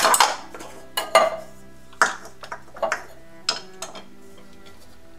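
Clinks and knocks of a scoop against ceramic bowls as sliced black olives are scooped up and tipped into a bowl of flour. There is a quick cluster of knocks at the start, then single clinks every half second or so, stopping about four seconds in.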